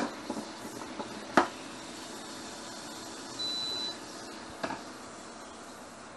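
Bacon sizzling steadily in a frying pan, with a few sharp clacks of tongs against cookware: one right at the start, one about a second and a half in, and a fainter one later. A single half-second electronic beep sounds about midway.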